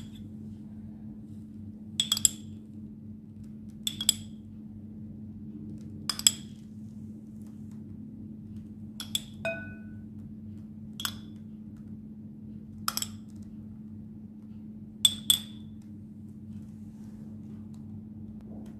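A spoon clinking against the rim of a small container about every two seconds, some strikes doubled, as oil is spooned out over a salad. A steady low hum runs underneath.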